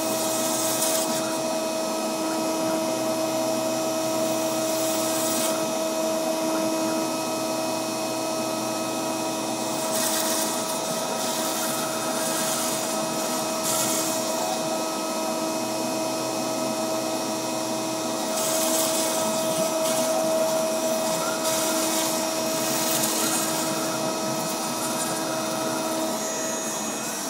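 CNC router spindle running with a steady high whine while its bit carves expanded polystyrene foam, with louder hissing surges every few seconds.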